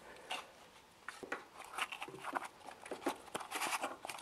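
Faint scattered clicks and rubbing from handling a cut-off saw's recoil starter, as the starter rope is drawn out while the pulley is held against the wound spring. The clicks come more often in the second half.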